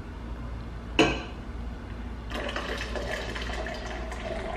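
A single knock about a second in, then from about two seconds in water pouring from a kettle into a bowl to dissolve gelatin powder.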